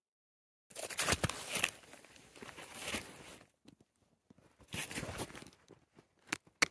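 Snowshoe binding straps being pulled and fastened onto a boot, in bursts of rustling and scraping from strap, clothing and snow, with a couple of sharp clicks near the end.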